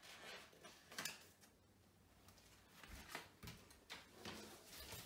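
Near silence, broken by a few faint rustles and taps of a paper arrow being peeled off a wall and handed over: one about a second in and a short cluster near the end.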